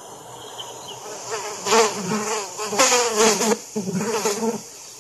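Flying insect buzzing in several short bouts, its pitch wavering up and down, starting about a second and a half in and stopping shortly before the end.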